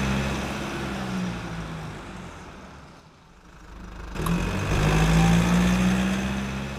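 Car engine sound effect, a car revving as it drives past, heard twice: loud at first and fading out about three seconds in, then swelling up again about a second later and fading near the end.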